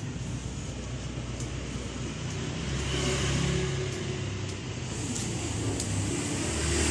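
A motor vehicle's engine running as a steady low drone, its pitch shifting a little, with a few faint clicks.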